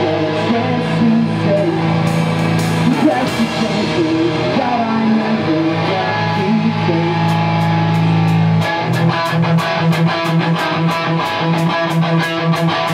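Live pop-punk rock band playing: electric guitars ringing out sustained chords, with the drums picking up a fast, even beat about two-thirds of the way through.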